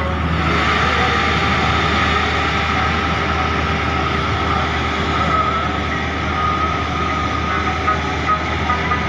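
A river ferry's diesel engine running steadily under way, a constant loud drone.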